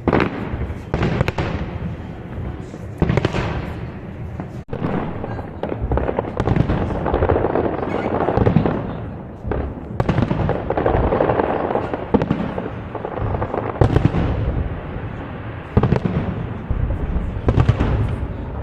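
Festive aerial fireworks going off in a steady string of bangs, several sharp reports a few seconds apart with a rumbling, echoing din between them.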